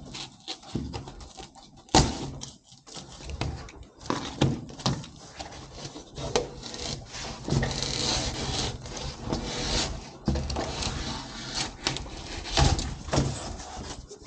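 Wall panels being handled and fitted during soundproofing board installation: scattered knocks and taps, a sharp knock about two seconds in being the loudest, and a stretch of rubbing and scraping of board on board from about eight to ten seconds in.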